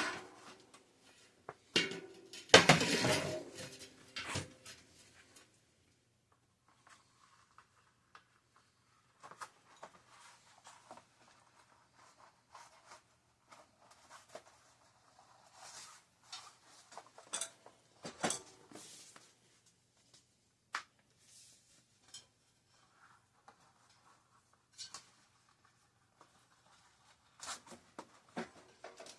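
Metal bicycle parts and hand tools clinking and clattering on a workbench, with one loud rattling clatter that rings briefly about two seconds in, then scattered lighter clicks and knocks.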